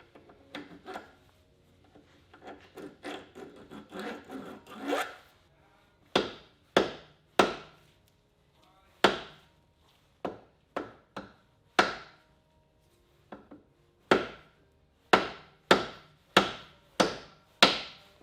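Repeated hand scraping or scrubbing strokes on a hard surface: a quick flurry of short strokes for a few seconds, then single sharp strokes about every half second to second, each fading quickly.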